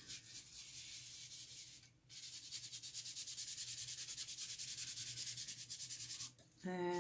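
Paintbrush scrubbing paint onto textured mixed media paper: a scratchy rasp at first, then, after a short pause about two seconds in, quick regular back-and-forth strokes that stop shortly before the end.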